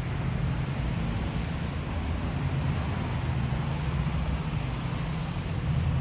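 Steady downtown street noise in a snowstorm: a low traffic rumble with a hiss of wind over it.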